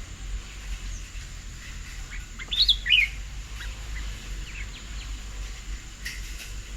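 A bird at a garden feeding table gives a short burst of quick, high chirps about two and a half seconds in, with a few fainter chirps later, over a steady low rumble.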